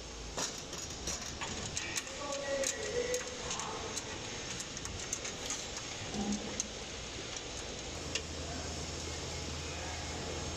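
Light metallic clicks and taps of a steel mounting bracket and its bolts being handled on a conveyor frame, thickest in the first few seconds, with a low steady hum coming in about eight seconds in.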